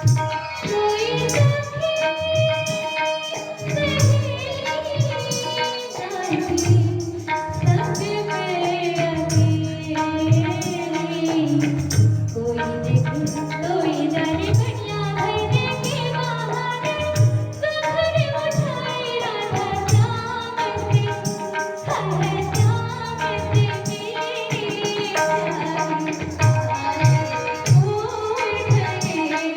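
A woman singing an Indian song to tabla accompaniment, with the tabla's deep bass strokes beating steadily under the melody.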